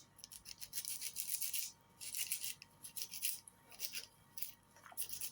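Knife working through garlic cloves: several short spells of scraping and rustling, with brief pauses between.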